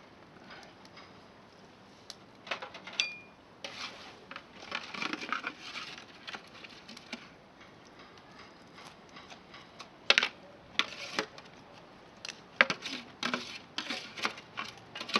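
Irregular small clicks, taps and light clatter, with a short ringing clink about three seconds in.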